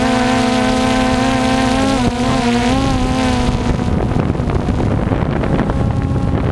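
Quadcopter drone's propellers whining steadily, the pitch dipping and recovering briefly about two seconds in. After about three and a half seconds the whine fades and wind rumbling on the microphone takes over.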